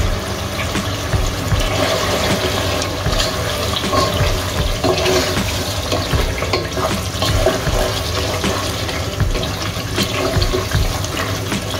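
Beef curry simmering in oil in a pot, bubbling and sizzling with many small pops. Later on a spatula stirs through the meat.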